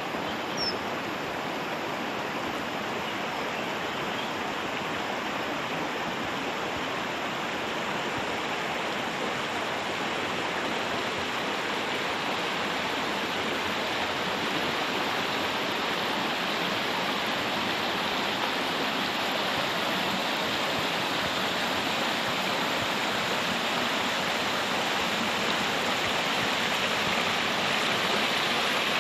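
Steady rush of flowing water from a stream or small waterfall, slowly growing louder. A brief high chirp about a second in.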